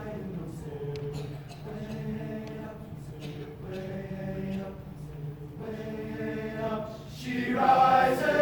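An a cappella vocal group singing held chords in low voices, with no instruments, swelling to a louder chord near the end.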